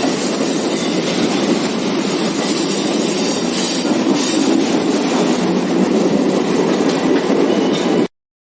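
Chennai suburban local train running on the rails, heard from on board: a steady loud rumble of wheels on track. It cuts off suddenly about eight seconds in.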